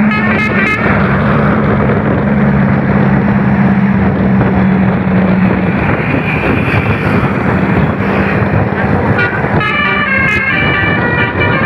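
Indonesian tour bus's basuri telolet musical horn playing its stepped multi-note tune, which breaks off about a second in. Loud rushing vehicle noise with a low steady drone follows, and the horn tune starts again near the end.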